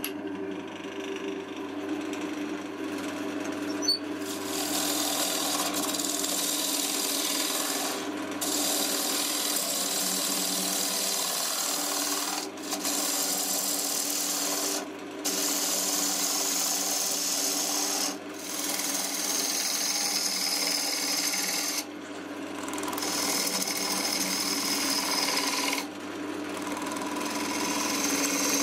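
Wood lathe running with a steady hum while a turning tool cuts the spinning ash, a hissing cut that stops briefly several times as the tool lifts off, here taking away the bowl's foot on the jam chuck. A single sharp click comes about four seconds in.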